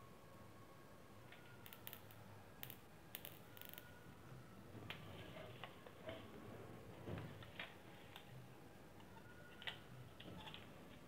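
Faint, scattered clicks and taps from an electric mosquito-swatter racket being handled, with its plastic handle casing opened to the circuit board. The clicks come in a small cluster a couple of seconds in, then more sparsely over the rest.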